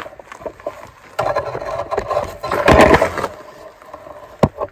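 Metal rattling and scraping as a pin is worked by hand in the cast-iron drawbar hitch of a Farmall Cub tractor, loudest about three seconds in, followed by one sharp click near the end.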